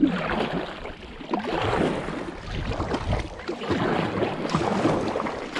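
Water splashing and gurgling around a kayak being paddled, the sound swelling and easing with the strokes.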